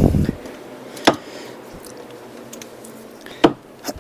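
Sharp metallic clicks and knocks of a wrench working on a seized power steering pump mounting bolt: one about a second in, a louder one about three and a half seconds in, and a smaller one just after it. The bolt is not yet breaking loose.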